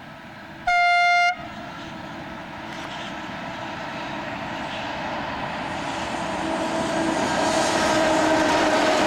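A train horn gives one short, single-note blast about a second in. Then an approaching train grows steadily louder, with a faint steady whine joining the rumble near the end.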